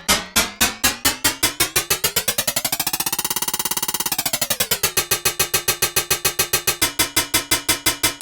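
Synthesized metallic-sounding percussive hits repeated in quick succession. They speed up into a fast roll around the middle, then settle to about six a second. A ringing pitch under the hits rises and then falls back, stepping lower near the end.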